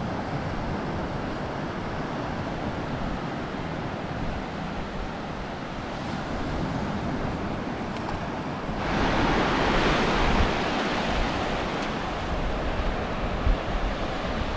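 Ocean surf breaking and washing up the beach, with wind on the microphone. About nine seconds in, the surf grows louder and brighter.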